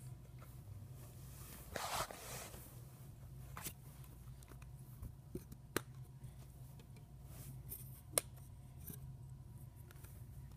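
Faint handling of Lego pieces on a fabric blanket: a short scraping rustle about two seconds in, then a few light, separate clicks of plastic bricks being set down, over a steady low hum.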